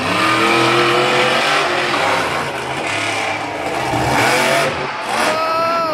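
Monster truck engine revving hard under throttle. Its pitch climbs just after the start, holds, and near the end swells up and drops away again.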